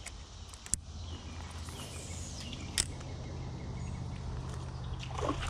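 Outdoor creek ambience: a steady low rush of noise, with two sharp clicks, one under a second in and one near the three-second mark.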